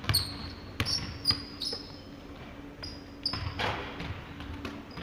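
Basketball bouncing on a hardwood gym floor in uneven thuds as players dribble, with several short, high squeaks of sneakers on the court.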